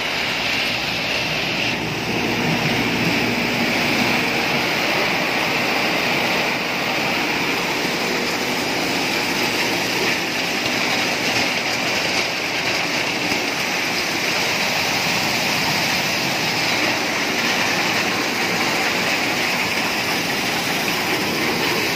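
Diesel-powered maize thresher running, a steady, dense mechanical noise.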